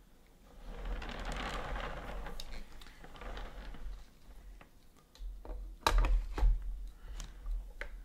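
Handling noise from a large collectible statue's arm being fitted onto the figure. A short stretch of rustling comes first, then in the last couple of seconds several sharp clicks and knocks with low thuds as the arm is pushed into place.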